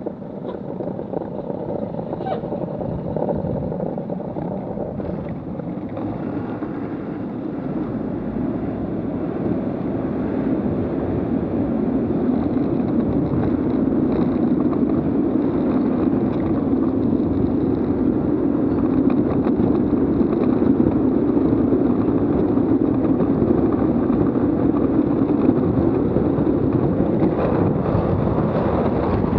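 Wheels of a Buggy Rollin wheel suit rolling on asphalt down a mountain road, with wind rushing over the microphone. The steady rolling noise grows louder through the first half as the rider speeds up to about 36 km/h, then holds.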